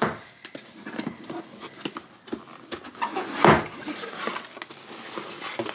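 A cardboard box being handled on a table and its lid flap opened: light scuffs, taps and rustles of cardboard, with one louder bump about three and a half seconds in.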